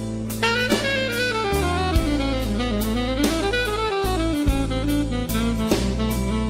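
Jazz background music: a saxophone-like lead playing a gliding melody over bass and drums with a steady beat.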